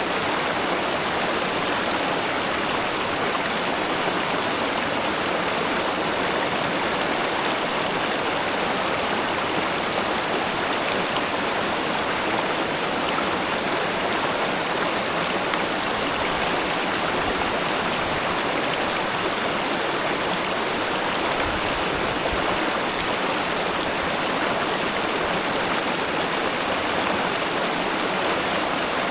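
River water flowing steadily, a continuous even rush with no change.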